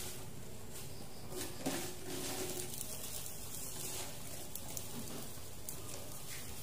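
Soft rustling and light taps as moringa leaves are tipped from a plastic colander into a pot of simmering soup, over a steady low hiss.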